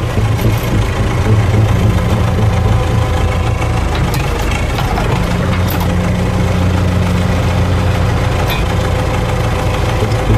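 Heavy military-style vehicle's engine running steadily at low revs as it drives in, with a few faint clicks.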